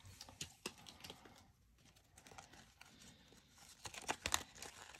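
Faint scattered taps and clicks of fingers handling and pressing on a paper card on a tabletop, coming more often near the end.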